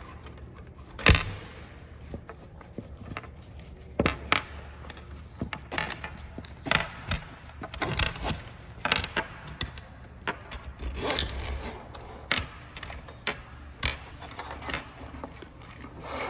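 Nylon webbing strap of a scuba harness being pulled and slid through the keepers of a backplate pad, scraping and rubbing, with irregular knocks of the backplate and strap hardware on a wooden table; the loudest knock comes about a second in.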